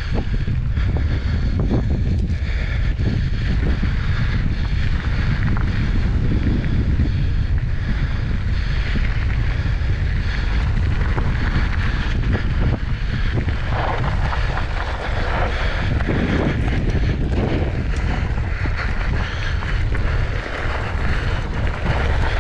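Wind rushing over the camera microphone while a mountain bike rides dry dirt singletrack. Under it, the tyres crunch over dirt and small rocks and the bike rattles.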